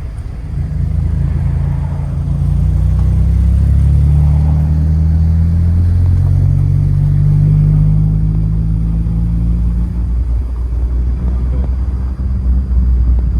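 Motor vehicle engine running with a steady low rumble, its pitch drifting slightly up and down.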